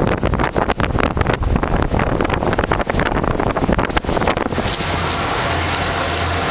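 Wind buffeting the microphone over the steady low drone of a motor tender's engine. About four and a half seconds in the gusts stop and the engine noise goes on evenly, as heard inside the boat's wheelhouse.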